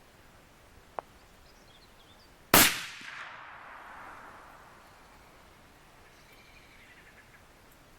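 A single rifle shot about two and a half seconds in, its report rolling away and fading over the next two seconds. A sharp click comes just over a second before it.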